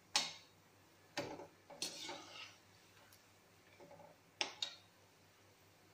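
A metal slotted spoon knocking and scraping against the side of an aluminium kadai while gulab jamun are turned in frying oil: a handful of sharp clinks, two of them close together near the end.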